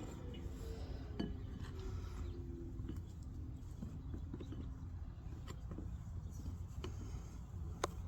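Handling of beehive parts: a few sharp clicks and light knocks of hard objects, over a low steady rumble.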